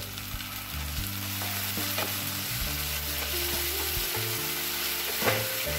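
Water poured into hot oil and sauce in a frying pan, sizzling, while a spatula stirs through the mixture; a sharp knock of the spatula on the pan a little after five seconds.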